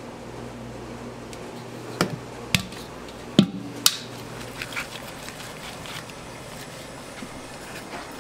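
A metal mixing bowl knocking four times, sharply, against a plastic tub as it is emptied and scraped of hotteok dough, then a few lighter knocks, over a steady low hum.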